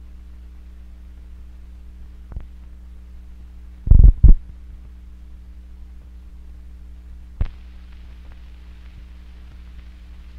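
Steady low hum from a 16mm film's optical soundtrack running over blank leader. Two loud low thumps come close together about four seconds in, with a fainter pop a couple of seconds in and another about seven seconds in.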